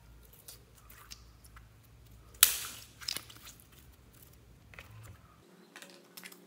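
Pink slime with clay mixed in being stretched, folded and squeezed by hand, giving scattered small wet clicks and crackles, with one loud sharp pop about two and a half seconds in.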